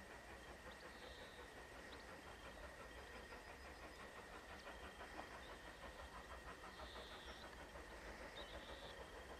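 Distant steam locomotive approaching with its train, heard faintly as an even, rapid rhythmic beat.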